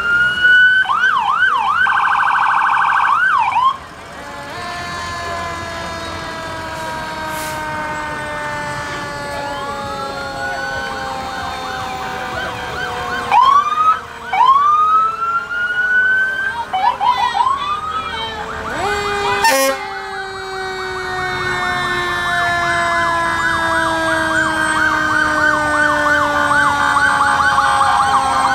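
Fire truck sirens: a rising wail and a fast yelp, then several long tones falling slowly in pitch as the sirens wind down, with short rising whoops and another brief yelp in between.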